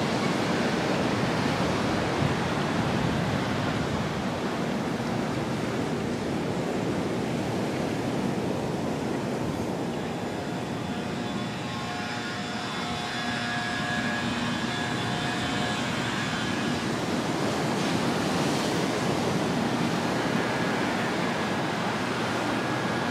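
Ocean surf breaking steadily on the beach, an even rushing wash. A faint whine sits over it for a few seconds about halfway through.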